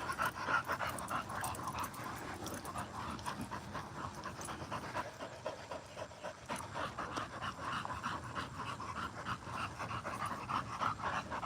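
A dog panting rapidly and steadily, short breathy pants in quick succession, as after running and chasing a ball.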